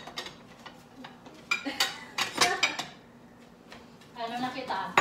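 Kitchen dishes and utensils clinking and clattering as they are handled, with a cluster of sharp clinks and knocks about halfway through. A voice is heard briefly near the end.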